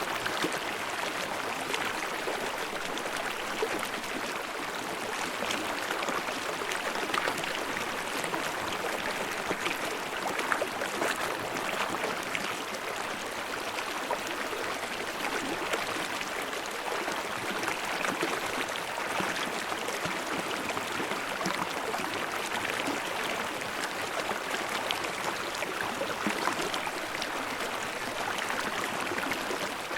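Small stream babbling and splashing over rocks in a steady, even rush with constant fine trickling detail.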